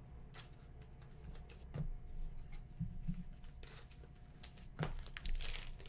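Baseball card pack wrapper being torn open and crinkled by hand: scattered crackles at first, then a denser, louder run of crinkling in the last couple of seconds.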